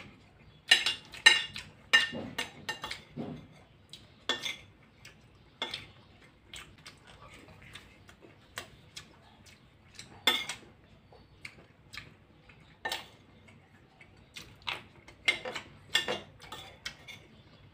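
A metal spoon clinking and scraping against a glass baking dish, between chewing and lip-smacking. It comes as irregular sharp clicks, a few close together at times and sparse at others.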